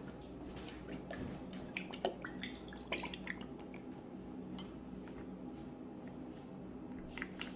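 Hot sauce being added from a bottle onto cut raw chicken pieces: faint, scattered drips and small wet clicks.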